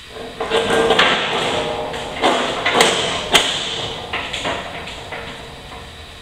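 Steel snow plow blade being levered upright onto a wheeled installation dolly: metal clanking and scraping with several sharp knocks, loudest near the middle and fading toward the end.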